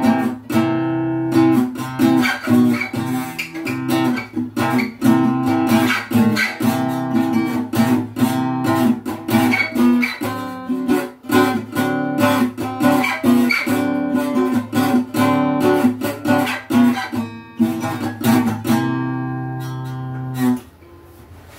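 Donner acoustic guitar, all stock with plastic nut and bridge, playing a quick picked tune of several notes a second. It ends on a chord that rings for about two seconds and is damped shortly before the end.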